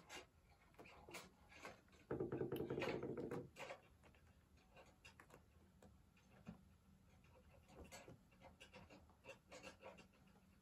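Faint scattered scratching and rustling as kittens scrabble and tumble on a woven cotton rag rug. About two seconds in, a louder low, steady-pitched drone lasts about a second and a half.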